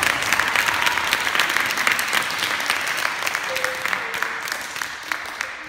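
Audience applauding, a dense patter of many hands clapping that slowly dies away near the end.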